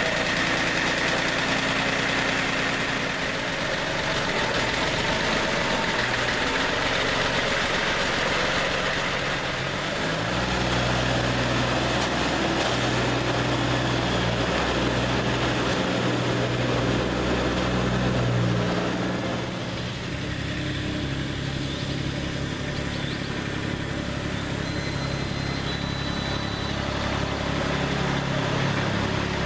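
International 254 compact diesel tractor engine running just after a cold start, a steady diesel idle. Its note changes about a third of the way in and again about two-thirds of the way in.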